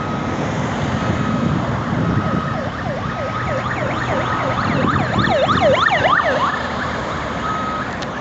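Road traffic passing, with an electronic siren sweeping rapidly up and down in pitch that swells about two to three seconds in, is loudest near the middle and fades away. Under it, a reversing alarm on a work machine beeps steadily about once a second.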